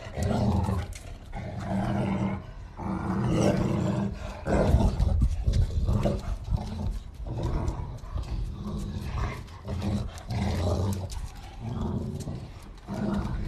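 Two Cane Corsos growling in play as they tug on a rope toy between them, a run of low growls broken by short pauses.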